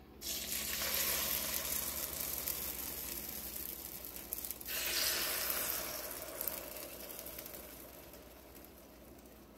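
Beaten egg sizzling as it is poured onto the hot non-stick plates of a Holstein two-section electric omelette maker: the sizzle starts suddenly and slowly dies down, then flares up again about five seconds in as the second compartment is filled, and fades.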